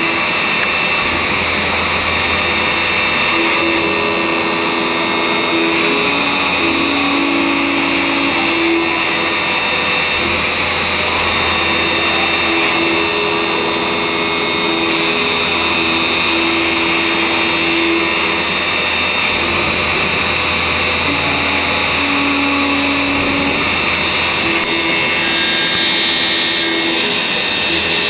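EMCOTURN E65 CNC lathe machining brass bar stock: a steady mechanical whir. A hum under it changes pitch, starts and stops every few seconds as the spindle and tooling change.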